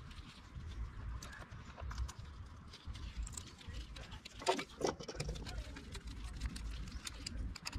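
Small clicks and taps of carburetor parts being handled and screwed together with a hand screwdriver, over a low rumble, with two brief squeaky sounds about halfway through.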